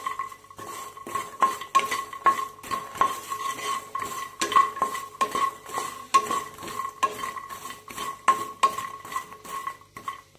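A spatula stirring dry-roasted makhana (fox nuts) around a nonstick pan. Irregular scrapes and taps come about two to three times a second as spice powders are mixed in on the pan's leftover heat with the stove off. A faint steady high tone runs underneath.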